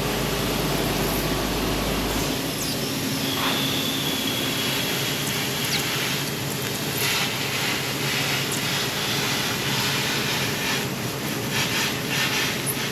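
Handheld laser cutter running steadily with a hissing rush of noise as it cuts through old sheet steel of a VW Bus body. A low hum cuts off about two seconds in.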